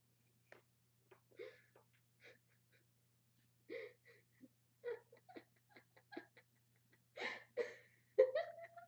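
A person's soft breathing, short breathy gasps and quiet chuckles in scattered bursts, with a louder rising vocal sound near the end.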